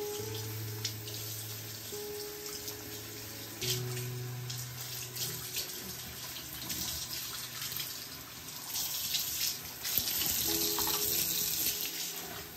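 Water running from a sink tap and splashing onto a wet cat being rinsed, louder in the second half, over soft background music.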